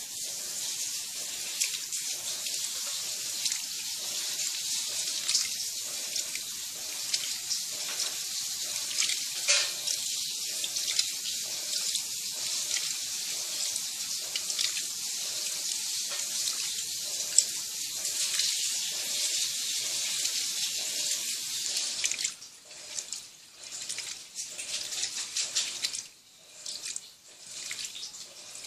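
Electrolux Turbo Economia LTD11 top-loading washing machine washing two blankets in a full tub of water: water churning and splashing steadily, then breaking into irregular sloshing surges about three-quarters of the way through.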